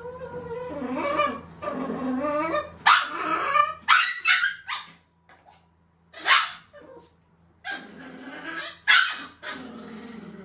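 Shih Tzu puppy growling and whining, then barking sharply several times from about three seconds in: a frightened dog resisting being groomed.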